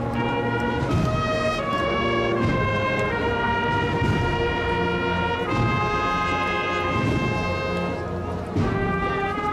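A brass band playing a slow processional march: trumpets and trombones carry a held melody that moves from note to note every half second or so, over a heavy low layer.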